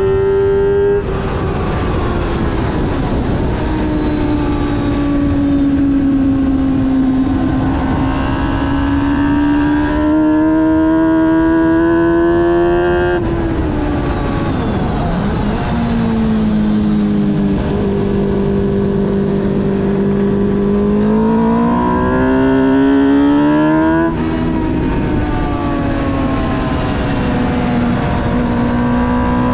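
A vehicle engine at high revs lapping a race circuit. Its pitch climbs under acceleration, drops sharply at gear changes about a second, 13 seconds and 24 seconds in, and falls away in long slides between.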